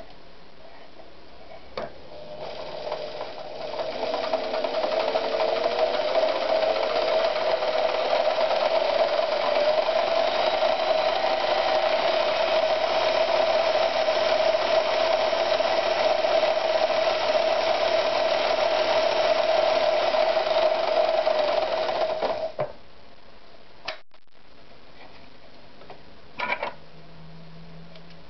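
Victoria 128 FE sewing machine starting after a click, speeding up with a rising whine over a few seconds, then running steadily for about eighteen seconds before stopping abruptly. A few single clicks follow near the end.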